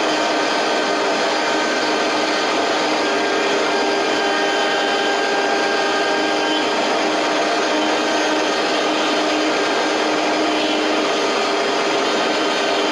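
CNC milling machine running, its spindle giving a steady whine with several held tones over a constant cutting noise as it mills the block.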